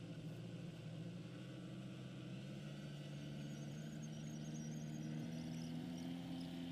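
Scale engine sound from an onboard sound system in a radio-controlled Tiger Moth biplane model, a steady low engine note that steps up in pitch twice and grows a little louder as the throttle opens for the takeoff roll.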